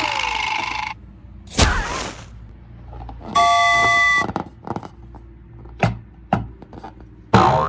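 A string of short sound effects: a hiss for about the first second, then a brief whoosh, about a second of a steady electronic chord of pure tones, then a few sharp knocks and a thud near the end.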